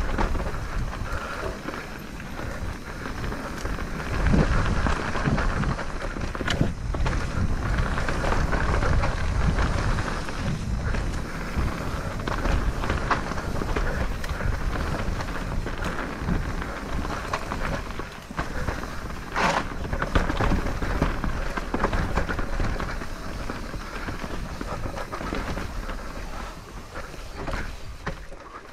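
Santa Cruz Bullit electric mountain bike ridden over a wet, slick dirt trail: a steady rush of tyre and wind noise on the camera microphone, with frequent rattles and knocks from the bike over rough ground.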